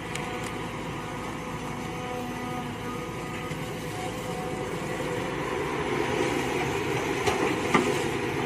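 Mini excavator engine running steadily as it works, getting a little louder about halfway through, with two short sharp clanks near the end.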